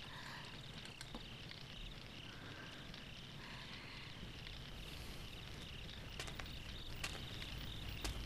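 Crickets chirping steadily in a faint night ambience, a rapid, high pulsing trill, with a few scattered sharp clicks.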